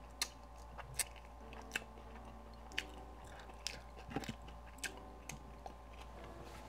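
A person chewing barbecued rib meat, with short sharp mouth clicks about once a second over a quiet background.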